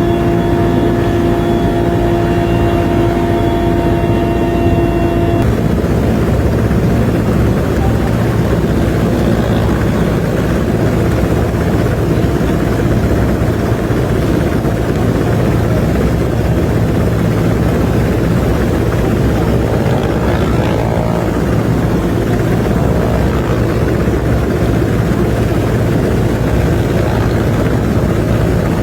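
Helicopter running steadily, its rotor and engine noise unbroken throughout, with a steady tone over it that stops about five seconds in.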